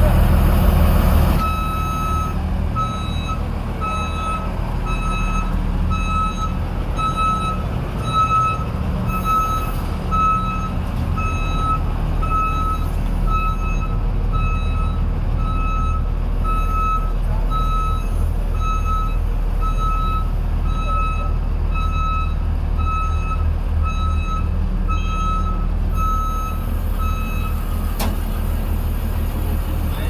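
New Holland TC5.30 combine harvester reversing: its reversing alarm beeps steadily at one pitch, roughly two beeps a second, over the running six-cylinder Cummins diesel engine. The beeping starts a second or two in and stops near the end.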